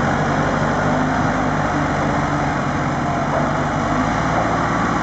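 An engine running steadily at a constant speed, with a low even hum under a continuous wash of noise.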